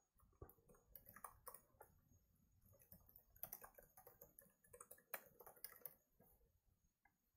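Faint typing on a computer keyboard: irregular rapid bursts of keystrokes that die down about six seconds in.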